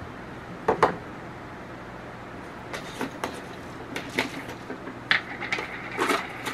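Jar of rainbow peppercorns being opened and handled: a couple of sharp clicks from the lid about a second in, then irregular clicks and rattles, more and more of them, as the peppercorns shift inside the tipped jar.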